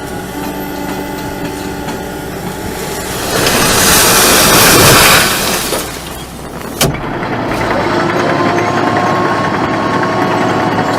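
Heavy machine's engine running, with a loud rush of noise lasting about two and a half seconds a few seconds in, a single sharp knock near seven seconds, then an engine running steadily again.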